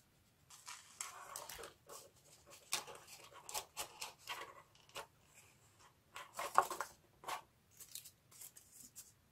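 Corrugated cardboard pieces being handled and slotted into one another by hand: scattered short scrapes, taps and rustles, with a louder scrape about six and a half seconds in.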